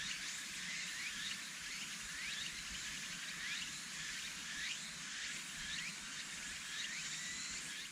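Outdoor nature ambience: a short rising call repeats about every 0.7 seconds over a steady high hiss.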